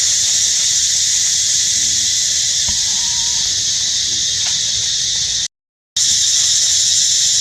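Loud, steady, high-pitched drone of a forest insect chorus. It cuts out completely for about half a second two-thirds of the way through.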